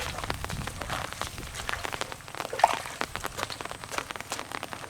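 An irregular patter of water drops and small splashes in shallow muddy water, many quick ticks in a row.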